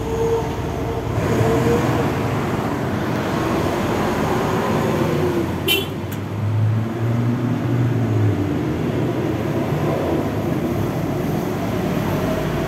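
Steady road noise of travelling at speed on a wet road: tyre rush with a motor vehicle engine running underneath, its pitch wandering slightly. A short sharp click about six seconds in.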